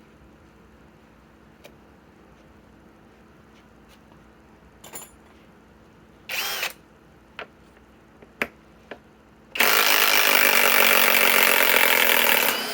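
Cordless Kobalt 3/8-inch right-angle impact wrench: a short blip of under half a second about six seconds in, then about three seconds of continuous impacting near the end as it backs out a lag screw. A few light handling clicks in between.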